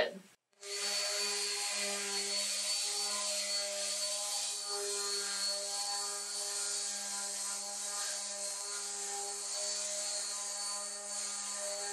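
Random orbital sander running steadily on a wooden board with 120-grit paper: an even motor hum under the hiss of the pad scuffing the wood. It cuts in abruptly about half a second in.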